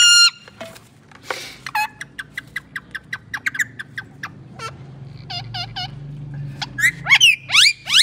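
Indian ringneck parakeet chattering in rapid short chirps, with a loud squawk at the start, three rising calls after about five seconds, and shrill rising squawks near the end.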